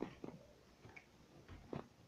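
A few faint, scattered clicks and taps, with a small knock near the end.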